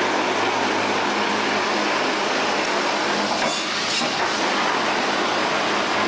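Factory machinery running with a steady, even rushing noise and a low hum.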